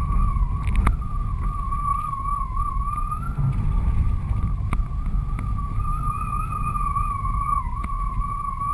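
Wind rushing over a GoPro HD strut-mounted on a flying 14 m Switchblade kitesurfing kite, a heavy low rumble with a steady whistle that wavers slightly in pitch, and a few sharp clicks.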